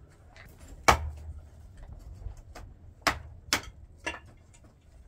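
Mason's trowel knocking and scraping in a metal basin of mortar: a few sharp knocks with quieter scrapes between, the loudest about a second in and two more close together past the three-second mark.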